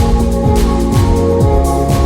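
Ambient house music: a four-on-the-floor kick drum at about two beats a second under held synth chords, with a soft high swish between the beats.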